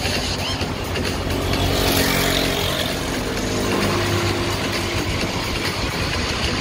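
Street traffic heard from a moving bicycle: steady wind and road rush, with a motor vehicle's engine hum swelling and fading in the middle.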